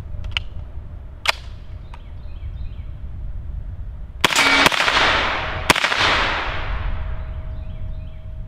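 A sharp click about a second in. Then, a little past four seconds, an IWI Tavor bullpup with a 9mm conversion kit fires a quick string of shots, and one more shot about a second later. The reports ring out in a long echo.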